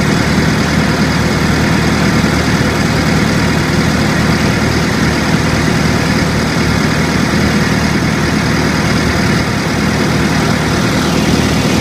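Farm tractor's diesel engine running steadily with a low, even hum. Near the end a higher whine slides down in pitch.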